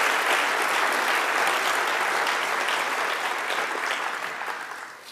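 Conference audience applauding, a dense patter of many hands clapping that dies away near the end.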